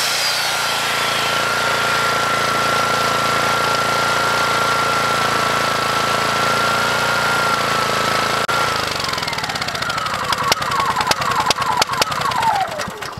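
WEN 4,000-watt inverter generator running with a steady high whine; about eight and a half seconds in it is switched off and the engine winds down, sputtering and popping as it coasts to a stop near the end. At the very start a circular saw spins down.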